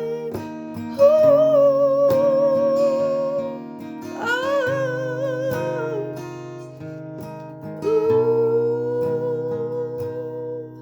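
A woman singing three long, wordless held notes with vibrato, over a strummed acoustic guitar.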